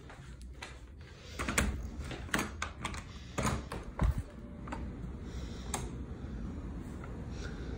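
Interior door's knob and latch being worked and the door swung open: a run of sharp clicks and knocks over a couple of seconds, ending in a low thump about four seconds in.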